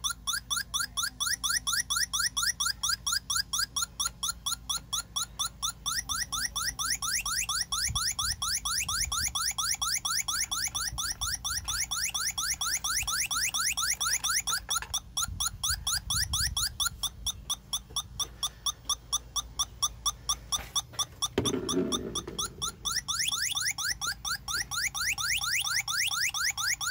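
Electronic refrigerant leak detector alarming with a fast, even run of short rising chirps, about three a second: its probe is picking up refrigerant leaking at the AC compressor.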